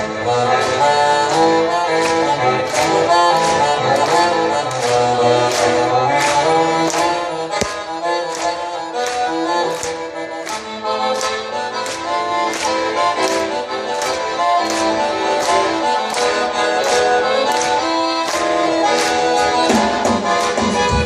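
Live band playing an instrumental passage led by accordion melody, over a light percussion tick about twice a second. The bass and fuller band come back in near the end.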